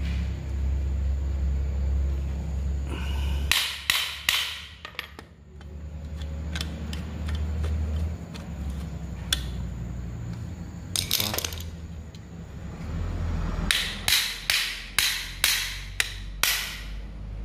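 Sharp knocks on the metal parts of a handheld wood router being worked on: a few about four seconds in, a couple near the middle, and a quick run of about eight near the end, over a low hum.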